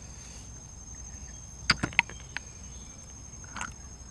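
Eating sounds: a few sharp clicks and crunches, two close together about halfway through and a softer one near the end, from a meal of boiled apple snails and raw vegetables.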